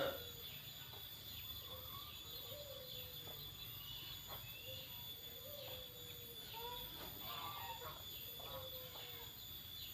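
Faint outdoor birdsong: short, low, falling calls every couple of seconds and scattered higher chirps, over a steady high insect trill.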